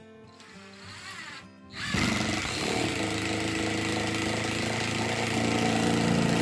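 Power drill driving a long wood screw through plywood subfloor into the joist below, running steadily for about five seconds after starting suddenly about two seconds in.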